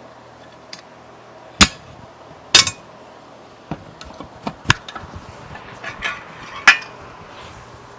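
Sharp metal knocks and clinks from hand tools striking and handling steering gear parts: two loud strikes in the first few seconds, then a run of lighter clicks and a last loud knock near the end.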